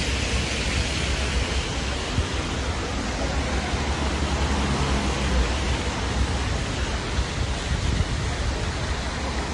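Steady rushing noise of an open city street, with a low rumble throughout and no distinct events.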